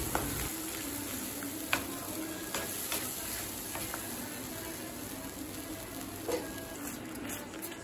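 Ground onion-tomato chutney sizzling steadily in hot oil in a kadai on low heat, tempered with mustard seeds and curry leaves, with a spatula stirring it and knocking against the pan a few times.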